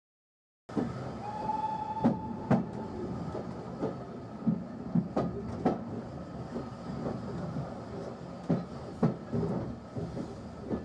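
Railway carriage running along the line, heard from inside: a steady rumble of the wheels on the rails with a pair of sharp clicks about every three seconds as the wheels cross rail joints. The sound starts abruptly under a second in, and a short high tone sounds briefly about a second in.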